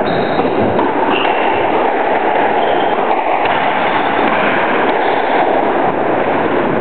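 Steady loud rushing noise, with a few short high squeaks of squash shoes on the wooden court floor.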